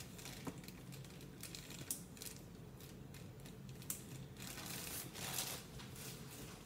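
Light clicks and crinkling of kitchen items and packaging being handled on a counter, with a longer rustle around five seconds in, over a low steady hum.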